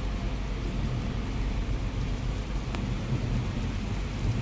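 Heavy rain falling, a steady even hiss over a constant low rumble.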